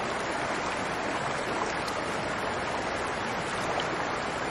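Steady rushing of a shallow mountain creek flowing over rocks.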